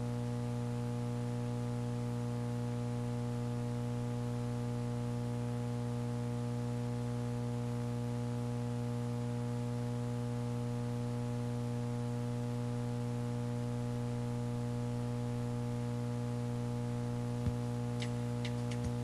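Steady electrical mains hum with a stack of even overtones, over faint hiss. A few sharp clicks come near the end.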